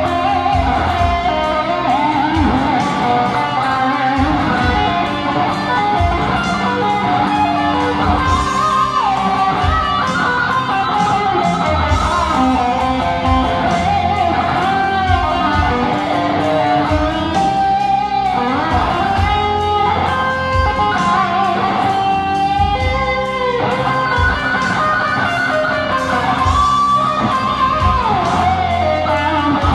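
Charvel electric guitar playing a lead solo, a single melodic line with frequent string bends and slides, over a backing track with drums and bass.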